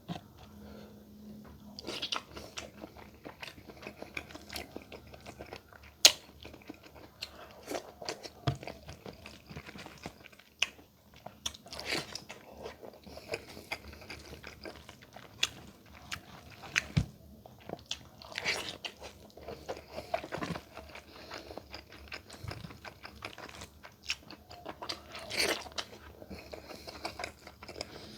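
A person eating close to the microphone: irregular bites, chewing and crunching, with a sharp click about six seconds in.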